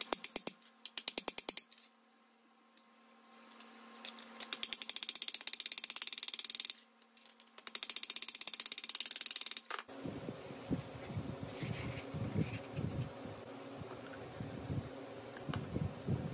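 Hammer tapping rivets flat against a steel anvil horn, in quick runs of light taps lasting a second or two each. From about two-thirds in, the tapping gives way to soft handling and rubbing noises as a foam liner is pressed into the license-plate koozie.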